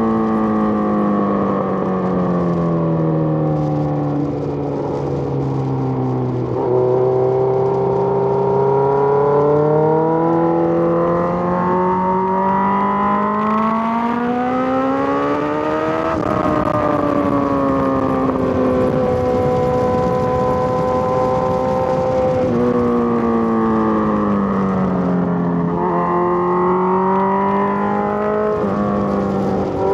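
Suzuki GSX-R1000 inline-four engine on a ride, its pitch falling as the throttle eases off, then climbing for several seconds under acceleration and falling again, with a few sudden pitch steps at gear changes.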